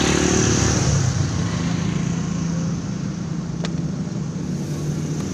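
Beaten egg sizzling in a wok of hot oil as it fries into telur gulung, with a steady hiss throughout. Under it a motor vehicle's engine runs steadily, and there is one sharp click about three and a half seconds in.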